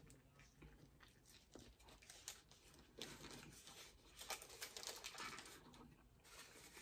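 Faint close-up mouth sounds of biting into and chewing a burger, with the paper burger wrapper crinkling in the hands; the crackling is busiest in the second half.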